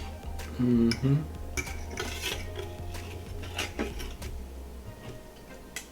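Cutlery clinking and scraping against plates and dishes in a string of short, irregular knocks over a steady low hum.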